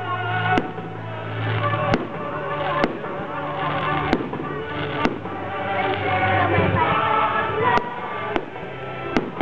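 Aerial fireworks shells bursting, about eight sharp bangs at irregular intervals of roughly a second, over music that plays throughout.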